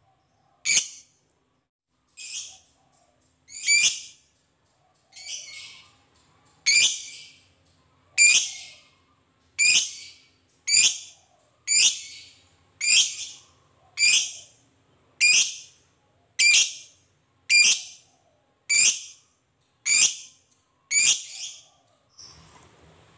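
Masked lovebird giving a string of about seventeen short, shrill, high-pitched calls, one every second or so.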